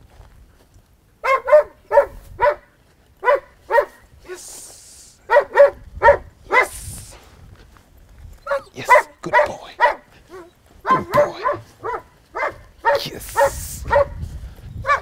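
Dog barking repeatedly, short barks in quick runs of about two to three a second, with brief pauses between runs.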